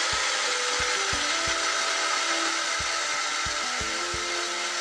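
Mixer grinder's brushed universal motor running steadily with its casing open, on newly fitted carbon brushes.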